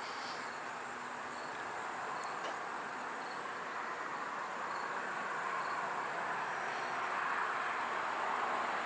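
Steady rushing background noise that grows a little louder toward the end, with a faint insect chirp repeating at a slow, regular pace.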